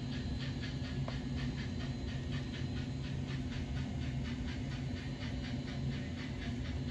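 Steam-locomotive chuffing played by an N scale Kato Southern Pacific GS-4's DCC sound decoder, an even, quick beat of chuffs over a steady low hum.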